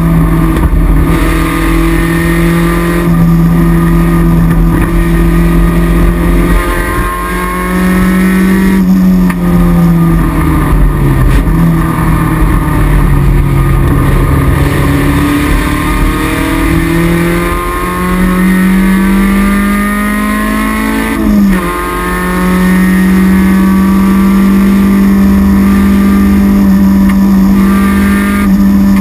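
Toyota MR2 (AW11) race car's 4A-GE four-cylinder twin-cam engine, heard from inside the stripped cabin, running hard under load. Its pitch falls about a third of the way in, climbs again, drops briefly about three-quarters through and then holds steady at high revs.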